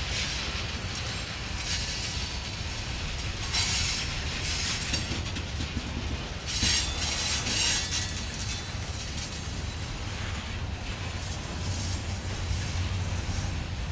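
Mixed freight cars (boxcars, a covered hopper, tank cars) rolling slowly past on jointed rail: a steady low rumble of steel wheels on track, with louder swells of wheel-and-rail noise every few seconds as the trucks go by.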